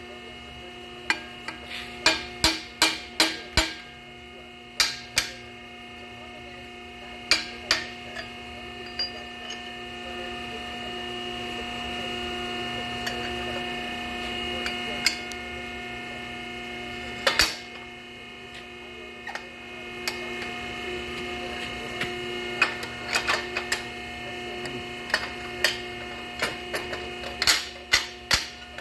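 Hydraulic flange-expanding ram tool humming steadily while metal exhaust pipe and collets knock and clank against the steel tool head as the pipe is fitted and worked. The clanks come in bunches of a few quick knocks, several about two seconds in and another run near the end, with one loud one a little past halfway.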